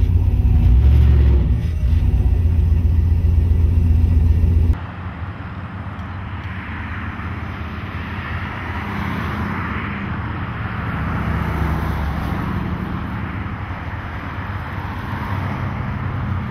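Loud low rumble of a car on the move, heard from inside its cabin, with a steady low engine tone. About five seconds in it cuts off suddenly to a quieter, steady outdoor street background.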